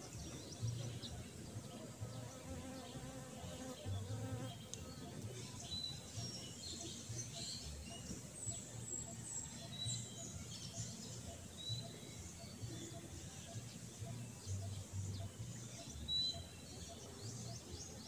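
Quiet outdoor garden ambience: wind buffeting the microphone in irregular low thumps, with short, high bird chirps now and then. An insect buzzes past briefly a few seconds in.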